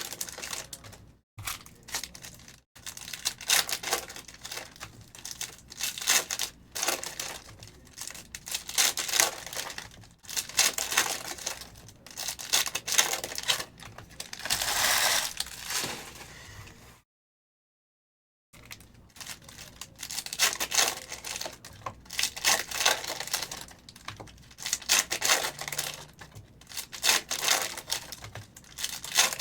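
Plastic trading-card pack wrappers being torn open and crinkled in quick, irregular bursts. The sound cuts out completely for about a second and a half a little past the middle.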